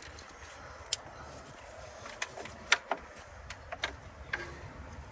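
Scattered sharp clicks and light knocks of an ignition coil pack and spark plug wire being unclipped, handled and refitted on a V8 engine, the loudest click nearly three seconds in.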